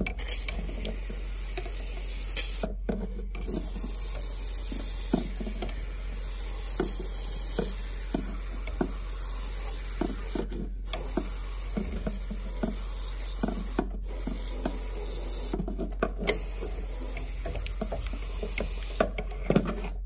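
No-rinse coil cleaner spraying onto an air handler's evaporator coil: a steady hissing spray that stops briefly about five times.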